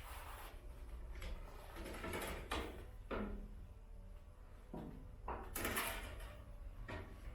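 A series of short knocks and sliding scrapes, about half a dozen spread unevenly, as hard parts are handled and moved, over a steady low hum.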